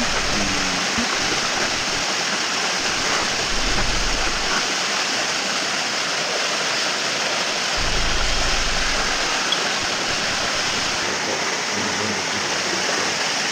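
Steady rushing noise of running water. A low hum swells under it twice, about four seconds in and again around eight seconds in.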